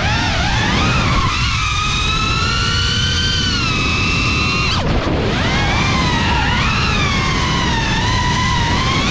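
FPV racing quadcopter's brushless motors whining, the pitch rising and falling with throttle and dropping sharply about five seconds in as the throttle is chopped, over a heavy rush of air noise.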